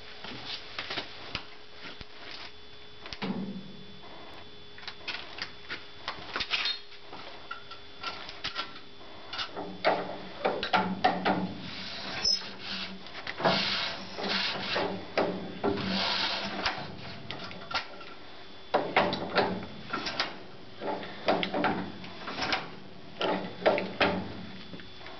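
A 1935 Case C tractor's four-cylinder engine being turned over by hand crank without firing: metal clanking and scraping in two long spells of cranking, from about ten seconds in and again near the end, with scattered clanks before them.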